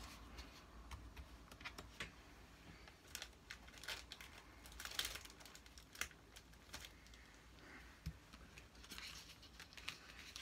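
Faint, scattered rustles and light taps of paper and cardstock pieces being picked up and moved about on a cutting mat.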